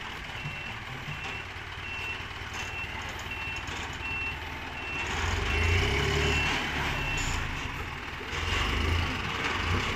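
Sand dump truck reversing: its reversing alarm sounds short, high beeps about one every three-quarters of a second, about ten in all, stopping about seven seconds in. Under it the truck's engine runs and grows louder about halfway through, swelling again near the end.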